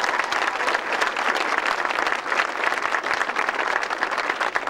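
Audience applauding steadily, many hands clapping at once, as a speaker is introduced.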